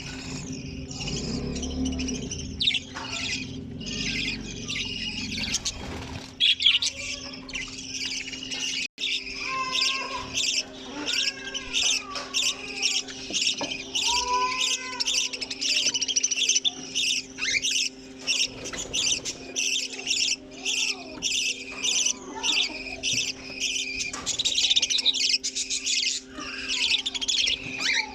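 A colony of budgerigars chattering and chirping nonstop, a dense warble of short high calls, with a few lower whistled calls in the middle, over a steady low hum.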